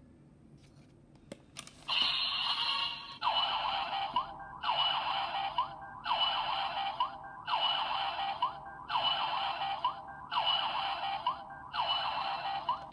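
Bandai DX Chemy Riser toy belt playing its looping electronic standby sound through its small built-in speaker after a card is loaded. A siren-like phrase repeats about every second and a half, after a single click just over a second in.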